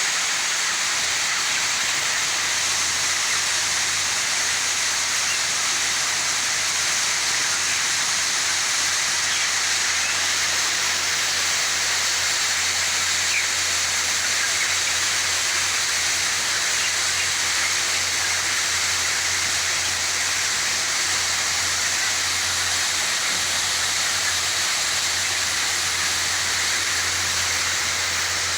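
Steady rushing hiss of a broiler house, with a low steady hum underneath.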